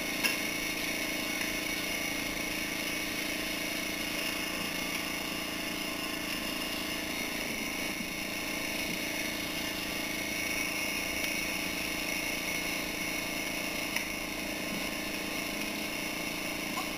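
A steady mechanical hum with hiss, holding several fixed tones at an even level, like an idling motor, with a couple of faint clicks.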